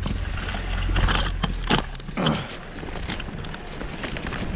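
Crunching and snapping of dry branches and snow underfoot while climbing through a brush pile. Under it an engine idles steadily, then stops about two seconds in.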